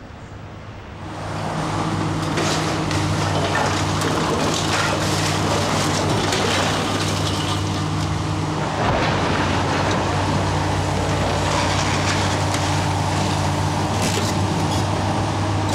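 Tracked hydraulic excavator's diesel engine running steadily while its demolition grapple tears into a brick building, with irregular crashing and clattering of falling brick and rubble. The noise starts about a second in.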